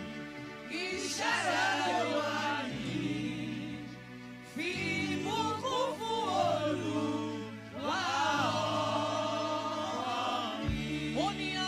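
Gospel choir singing a praise song, led by several women's voices, in phrases of two to three seconds with brief dips between. Sustained low notes hold steady underneath.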